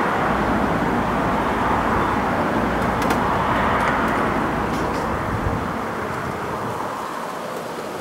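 Road traffic going by: a steady rushing noise with a low rumble that swells around the middle and fades out after about five seconds. A few faint small clicks sound over it.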